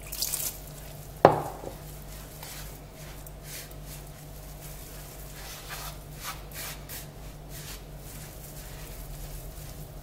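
Hands rubbing damp, buttered semolina in a large bowl: a soft, gritty rustle in repeated strokes as the grains are worked until they start to clump into dough. There is one sharp knock about a second in.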